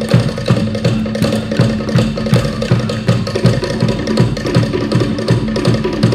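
Traditional Cook Islands drumming: wooden slit drums (pate) beating a fast, dense, driving rhythm over deep strokes of a larger drum.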